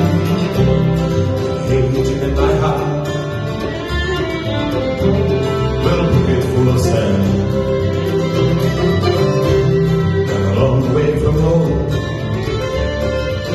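Live bluegrass band playing: fiddle, acoustic guitar, mandolin and upright bass together, heard through a hall PA.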